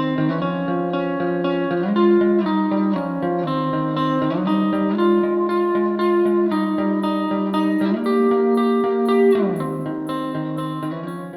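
Background music: a plucked guitar melody over held chords that change every second or two, with a light even ticking beat, fading out near the end.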